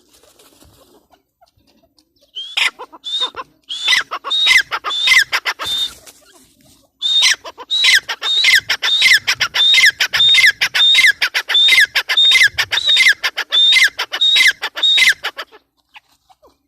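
Gray francolin calling: a fast series of loud, shrill notes, each dropping sharply in pitch, repeated about twice a second. The series starts about two seconds in, with a brief pause in the middle.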